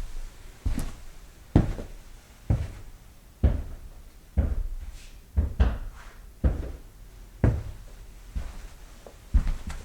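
Footsteps walking at an even, unhurried pace, about one step a second, each step a single thud.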